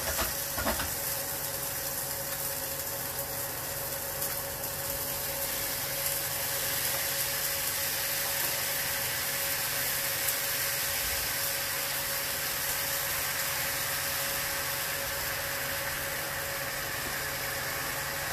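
Salmon fillets sizzling in a hot frying pan as a honey and lemon sauce is poured in and scraped from a bowl with a silicone spatula: a steady hiss, with a thin steady hum beneath it.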